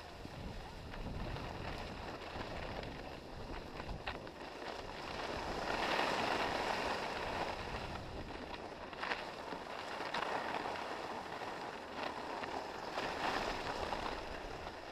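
Skis sliding over hard-packed groomed snow, a steady scraping hiss that grows louder about six seconds in and swells and eases after that, with a few short sharp scrapes. Wind noise rumbles on the microphone underneath.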